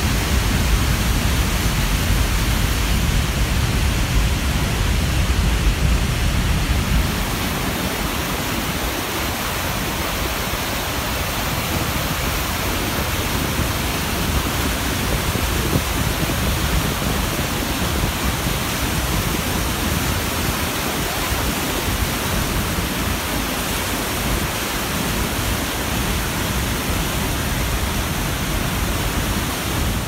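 Steady roar of Niagara's Horseshoe Falls and the white-water rapids at its brink, a dense rushing noise with a deep rumble that eases slightly about seven seconds in.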